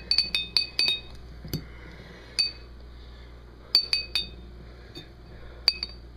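A metal fork clinking and scraping against a glass jar while pickles are fished out. The sharp, ringing clinks come irregularly in small clusters: a quick run in the first second, single ones around 1.5 and 2.5 seconds, three together near 4 seconds and two near the end.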